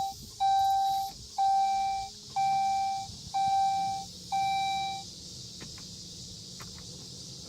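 2003 Saab 9-5 dashboard warning chime repeating about once a second, a clear tone with overtones, five times before it stops about five seconds in. A few light clicks follow over a faint steady hum.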